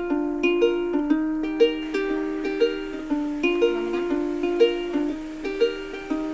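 Background music: a light plucked-string tune with a steady, bouncy beat of about two accented notes a second.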